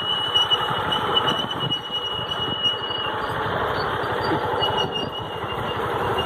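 Vehicle driving slowly with its engine running, and a steady high-pitched squeal through about the first half.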